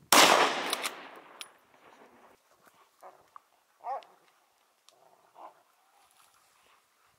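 A rifle shot with a long echoing tail, then the short yelps of hunting dogs worrying the downed wild boar: one clear yelp about four seconds in and a fainter one over a second later.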